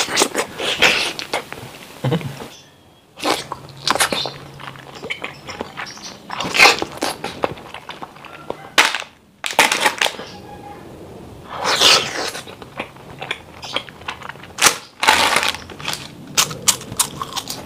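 Close-miked eating sounds in quick succession: bites, sucking and chewing on frozen ice cream and ice pop treats, then sharp crunching bites of a crispy seaweed snack sheet near the end. The sequence breaks off abruptly twice between snacks.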